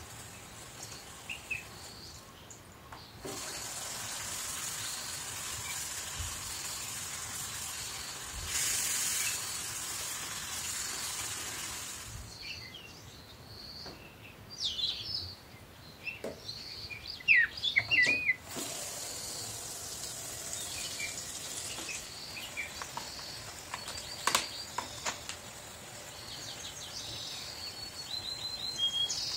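Kitchen tap running into a stainless-steel sink over oranges, with a steady rush that eases off for a few seconds mid-way. There are a few sharp knocks and clatters of fruit and hands in the bowl, and birds chirp faintly in the background.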